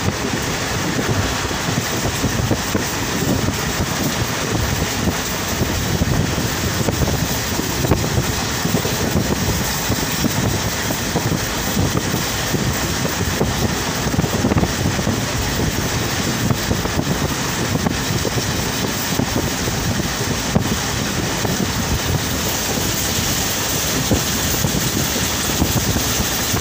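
Steady noise of a train running, heard through an open barred carriage window: wheels on the rails and rushing air, with wind buffeting the microphone.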